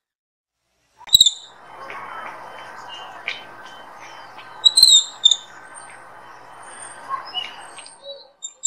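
Short high-pitched animal squeaks and chirps in small clusters, about a second in and again near five seconds, over a steady low murmur of background noise.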